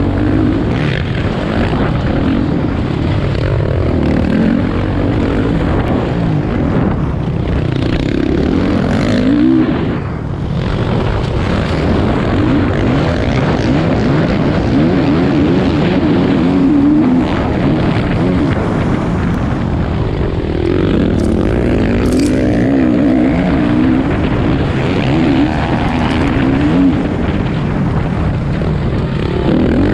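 Motocross motorcycle engines revving on the track, their pitch rising and falling with the throttle, with a brief lull about ten seconds in.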